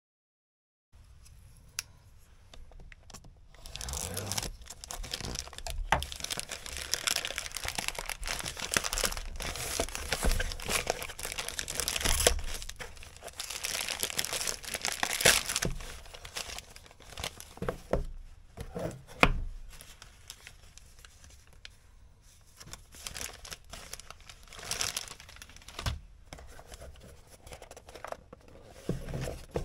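A black plastic mailer bag being torn open and crinkled by hand, rustling as the boxed knife is worked out of it. The rustling is heaviest in the first half and thins to scattered crinkles later.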